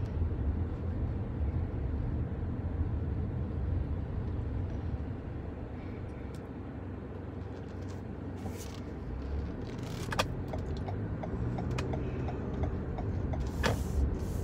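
Steady low road and engine rumble heard inside a slowly moving car. A few sharp clicks come past the middle, along with a short run of light, evenly spaced ticks.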